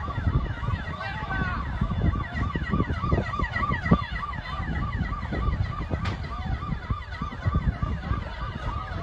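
Emergency sirens yelping in a fast repeating rise-and-fall, about three cycles a second, over a dense low rumble, with a sharp knock about four seconds in.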